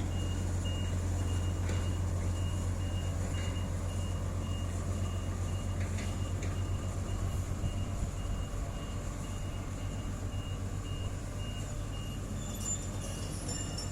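Heavy diesel engine of road-paving machinery running steadily, with a reversing alarm beeping at an even pace over it. The engine eases slightly lower after about eight seconds.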